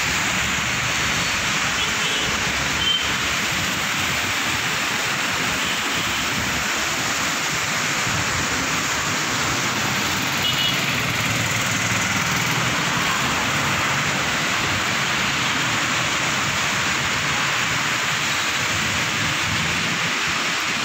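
Heavy rain pouring down steadily on a flooded road, an even hiss of rain and running water, with traffic passing through the water.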